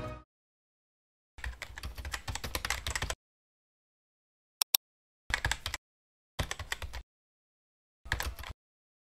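Computer keyboard typing sound effect: bursts of rapid key clicks separated by silent gaps, with a lone pair of sharp clicks about halfway through.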